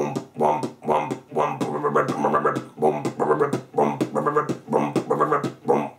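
Beatboxed throat bass: a hummed, growled vocal buzz pulsed in a steady beat of about two a second, with a short kick-drum sound at the start of each pulse.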